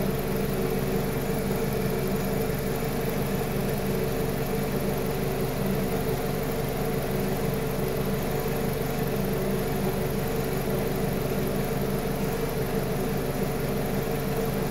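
Petrol car engine idling steadily, an even hum with no change in speed.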